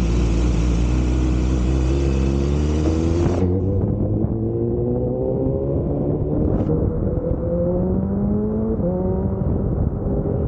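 BMW S1000RR inline-four engine running at a standstill under a steady hiss that cuts off suddenly about three and a half seconds in, then pulling away. The engine note climbs steadily, drops at an upshift near the end, and climbs again.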